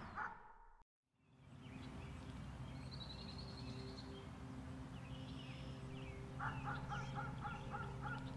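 Outdoor pond ambience: a steady low hum with birds chirping now and then, and near the end a bird repeating a short call about four times a second. It starts after a brief drop to silence about a second in.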